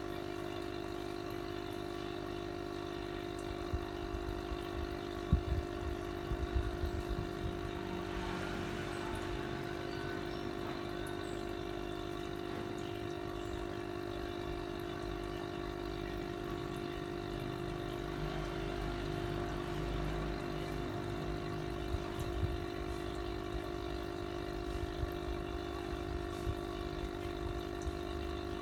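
Aquarium air pump humming steadily, air bubbling up through the water of a goldfish bowl, with a few soft knocks about five to seven seconds in.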